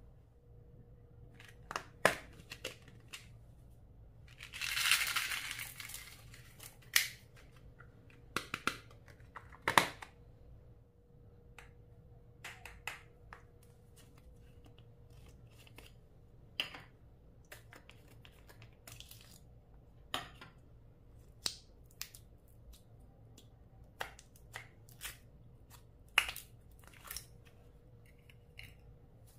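Hands working clear slime, with scattered sharp clicks and pops and one longer crackling noise about five seconds in.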